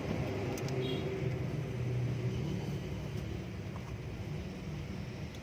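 Nissan Serena engine running with a steady low rumble, slightly stronger in the first couple of seconds.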